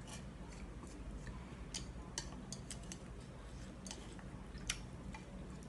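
Chopsticks and a spoon clicking and scraping against a speckled enamel bowl as noodles are stirred: scattered faint clicks, the sharpest about four and a half seconds in, over a low steady hum.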